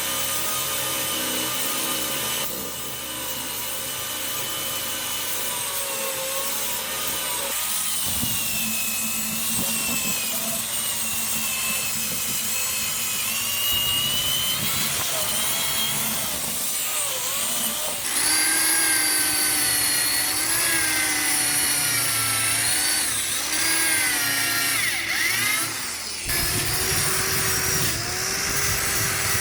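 An electric power tool running, its motor pitch wavering up and down as it works under changing load, with abrupt jumps between several short takes.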